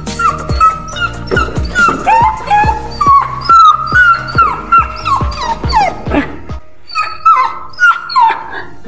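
A dog whining in short, high, falling cries, several a second, over background music with a steady beat that drops out about two-thirds of the way through.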